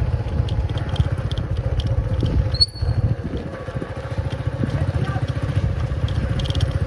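A small motorcycle engine running steadily at low speed, a dense low rumble, with a sharp click a little under three seconds in.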